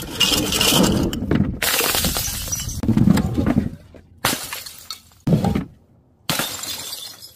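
Glass jars and bottles smashing on impact, glass shattering and crunching. The sound comes in four or five separate short bursts with abrupt cuts between them.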